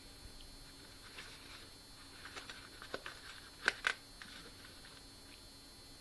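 Small clicks and rustles of a steel folding pocket knife being handled, with two sharper clicks in quick succession a little before four seconds in.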